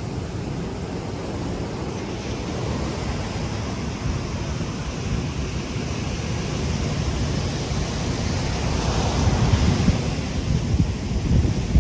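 Ocean surf breaking and washing up a sandy beach, with wind buffeting the microphone. The wash swells louder about nine seconds in.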